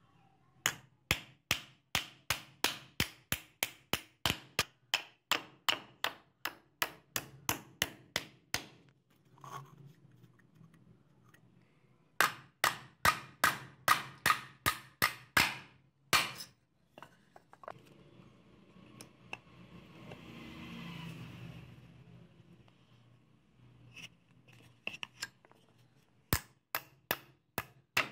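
Hammer driving steel nails into a wooden plank on a steel block: runs of sharp metallic blows, about three a second, with pauses between. Midway there are a few seconds of scraping noise. Near the end the blows flatten nails that have bent over.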